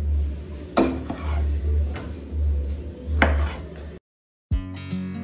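A few sharp kitchen knocks and clinks over a low, steady rumble. Then the sound cuts out briefly, and strummed acoustic guitar music starts near the end.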